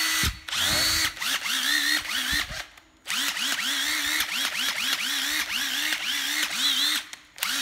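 Hitachi 12V cordless impact driver motor run in quick trigger pulses, about three a second, each spinning up and then braking to a stop. One short run, a brief pause, then a rapid string of pulses.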